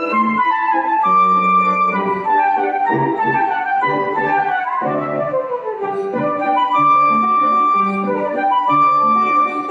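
Flute playing a lilting waltz melody over piano accompaniment, with a quick falling run about five seconds in.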